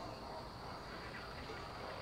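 Quiet evening street ambience with a steady high chirring of insects.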